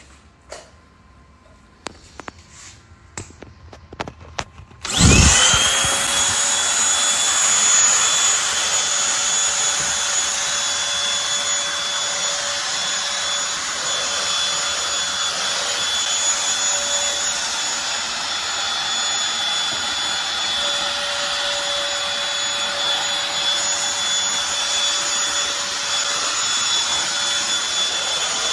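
A few handling clicks and knocks, then the Eureka NES215A Blaze stick vacuum switches on about five seconds in. Its motor spins up with a rising whine and then runs steadily, a high whine over a hiss of air.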